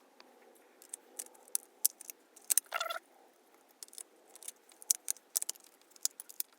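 Quick, light clicks and taps of small plastic drone parts being handled and fitted together by hand, with a brief squeak a little under three seconds in.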